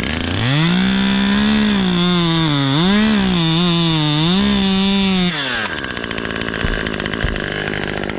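Stihl two-stroke chainsaw revved from idle to near full throttle and held for about five seconds, its pitch wavering and dipping a few times, then dropping back to idle.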